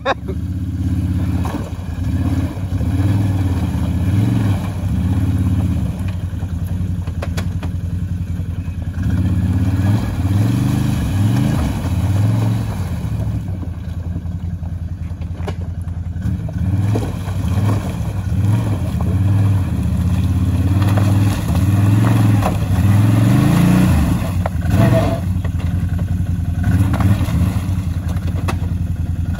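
ATV engine running and revving up and down as the quad churns through a flooded, ice-choked puddle, with occasional knocks and scrapes of broken ice against the machine.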